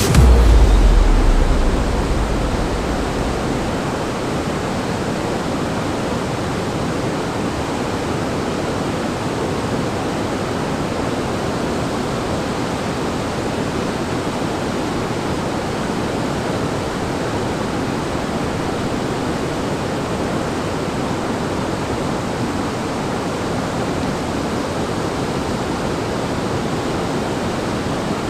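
Waterfall water rushing in a steady, even roar, with a heavy low rumble in the first few seconds.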